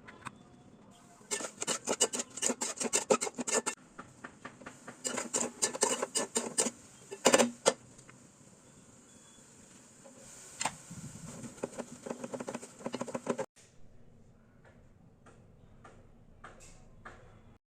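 Kitchen utensils clinking and scraping against dishware in several runs of quick strokes, with a couple of louder knocks in the middle.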